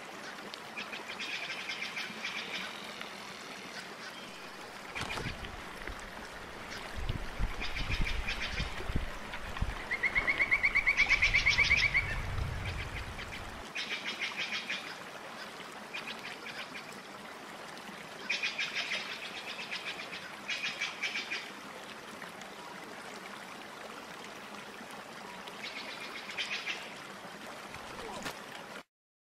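Repeated rasping, finely pulsed animal calls in several short bouts, the loudest and longest about ten seconds in, over a steady background hiss. A low rumble runs beneath the middle stretch.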